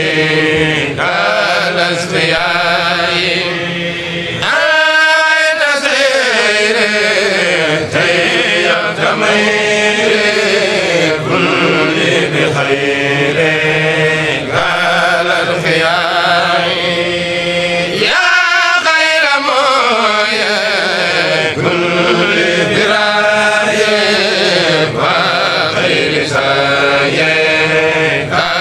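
Kourel group chanting an Arabic devotional poem (a Mouride khassaide) in long, drawn-out melodic phrases. A higher phrase that falls in pitch comes in about five seconds in and again about eighteen seconds in.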